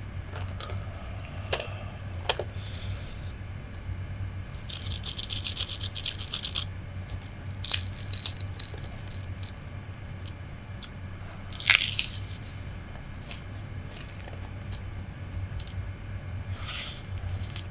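Close-miked crackling and crunching of crisp Indonesian fried snacks (gorengan) being torn apart by hand and bitten into. It comes as a string of sharp clicks and short crackly bursts, the loudest about twelve seconds in.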